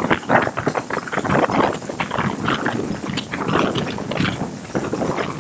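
Moving passenger train's wheels clattering on the track: a dense, uneven run of knocks.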